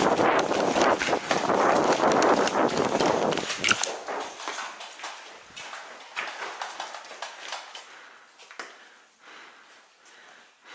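Footsteps and gear rattle of a player moving fast on foot, loud for the first few seconds. It then drops to quieter, scattered steps and clicks.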